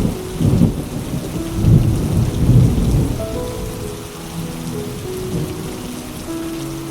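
Steady rain with a roll of thunder rumbling through the first three seconds, loudest about two to three seconds in. Soft background music with held notes plays underneath.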